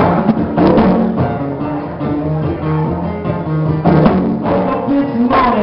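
Live music: an acoustic guitar being strummed, with a pair of conga drums played by hand.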